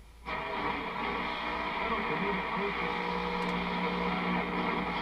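AM broadcast reception on a 1967 GE clock radio being tuned across the band at night. The sound drops out briefly at the very start, then a station comes in carrying music over static hiss and a low hum.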